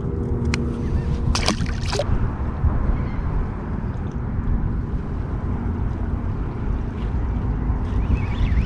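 Steady water and wind rumble around a small boat, with a few sharp knocks in the first two seconds and a faint steady hum that fades in and out.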